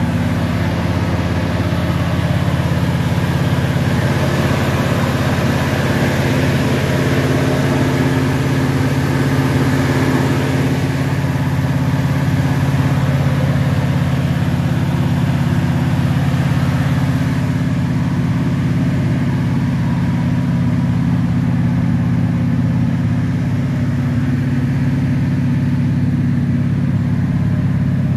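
An engine idling steadily: a constant low hum with several steady tones that stays at the same level throughout.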